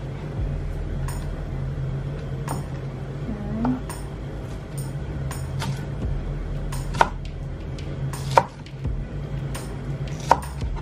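Chef's knife slicing scallions on a plastic cutting board: irregular short knife taps against the board about once a second, with three sharper knocks in the second half.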